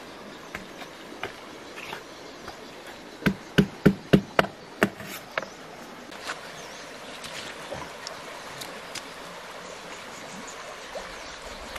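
Live catfish flopping in a woven bamboo basket: a quick run of about eight sharp slaps and knocks a few seconds in, over a steady rush of river water.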